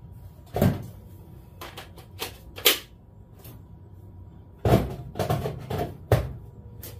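Scattered knocks, clunks and clicks of hard objects being picked up and set down in a workshop, about eight separate strikes with the loudest about two-thirds of the way through.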